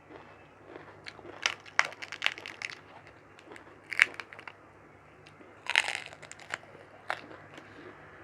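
Close-miked eating sounds of mutton curry with rice: irregular sharp crunching and biting clicks in short clusters, the loudest about four seconds in, with a brief crackly burst near six seconds.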